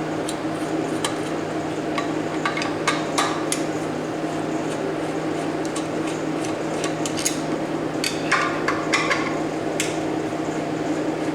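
Scattered light metallic clicks, taps and clinks of hand tools and parts being handled while a small electric air compressor's motor is taken apart, with a cluster about two to three seconds in and another near the end, over a steady background hum.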